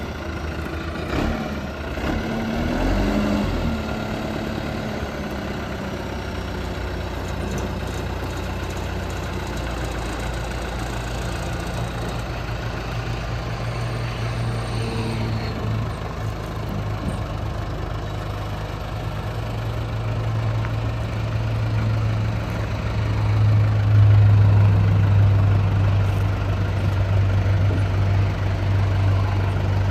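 JCB 214S backhoe loader's diesel engine running steadily while the loader and backhoe hydraulics are worked. It grows louder about two-thirds of the way through.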